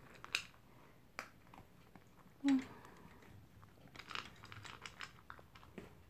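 A poodle eating dry kibble from a plastic bowl: scattered small crunches and clicks of chewing and of food against the bowl, busiest in the second half. A short pitched hum is heard once about two and a half seconds in.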